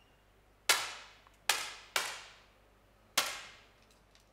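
Four 10m air pistol shots, sharp cracks at uneven intervals, each trailing a short echo. They come too close together for one single-shot pistol, so several shooters are firing along the line.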